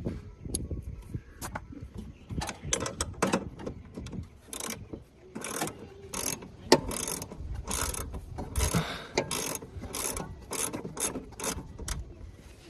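Ratchet wrench clicking in repeated short strokes, about two a second after the first few seconds, as a screw is tightened down.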